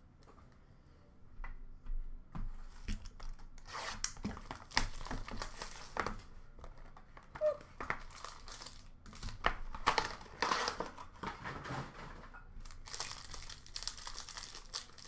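Plastic wrapping crinkling and tearing, with a cardboard trading-card box handled and opened, as a 2023 Topps Tier One baseball box is unsealed. The crackling starts about two seconds in and comes in irregular bursts.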